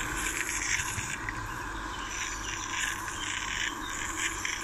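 Small live-steam model locomotive running slowly close by: a steady hiss with soft, uneven puffs.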